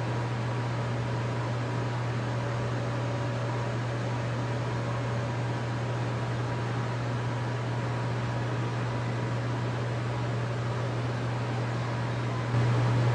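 Steady low mechanical hum of ventilation machinery with a faint hiss, stepping up in level near the end.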